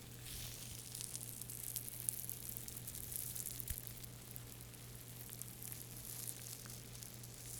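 Close-miked ASMR trigger sound: fine, dense crackling and scratching of something rubbed against or handled right at the microphone, with many tiny clicks.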